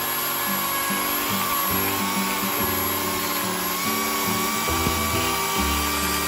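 Chainsaw cutting into a log: a steady high whine over the dense noise of the chain chewing through wood.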